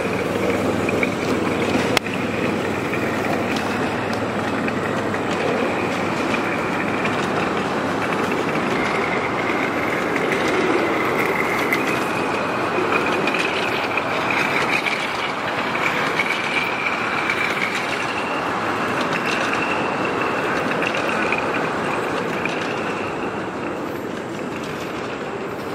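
A ride-on miniature railway train's cars rolling past steadily, wheels clicking over the rail joints, with a steady high-pitched whine that wavers slightly in pitch. It grows a little quieter near the end.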